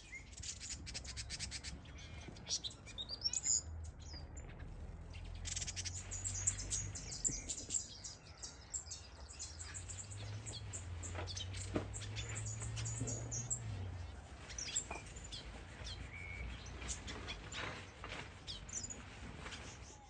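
Many small aviary birds (finches and softbills) chirping and singing, with short, scattered high calls overlapping throughout. A low hum rises in the background twice.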